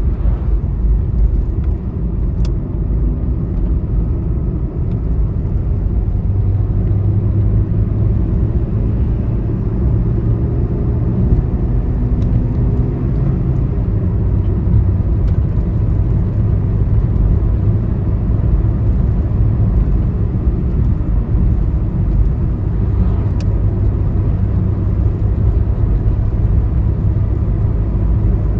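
Steady low rumble of a vehicle travelling on a highway: engine drone and tyre noise on the road surface, with no changes in pace.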